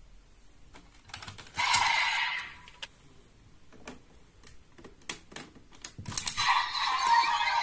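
Hard plastic clicks as raise buckles are pulled from and slotted into a Desire Driver toy belt. A short electronic sound effect plays from the belt partway through. About six seconds in, setting the buckle sets off the belt's loud electronic standby sound, which keeps going.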